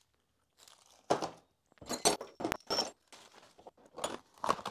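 Metal hand tools clinking and clattering as they are put into a plastic toolbox: a string of separate knocks and clinks with short quiet gaps between.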